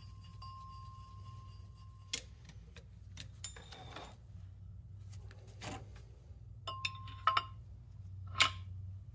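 Several sharp metal clinks, some with a brief ring, as a breaker bar and bolts are set against a steel flywheel, the loudest about eight seconds in, over a low steady hum.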